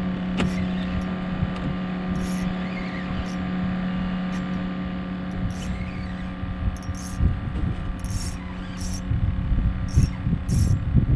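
A boat engine running steadily, a constant low hum that holds one pitch, with short high hissy flicks every second or so over it.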